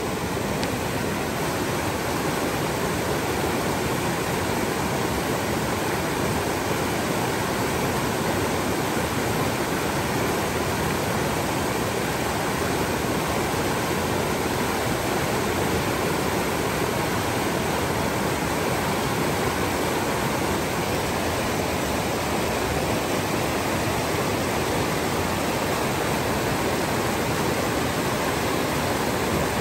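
The Sandy River, a fast silty meltwater river, rushing over rocks close by: a steady, even roar of water.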